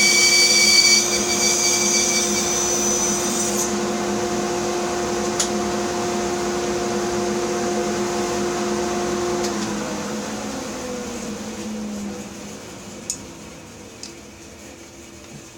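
Bandsaw cutting through a wood block, the high cutting noise stopping about four seconds in while the motor keeps running. About ten seconds in the saw is switched off and its motor hum drops in pitch as it winds down, followed by a few light clicks.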